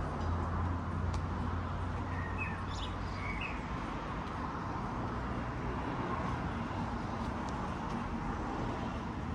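Outdoor street ambience with a low engine-like hum that fades out in the first second or so, and a few short bird chirps about two to three seconds in.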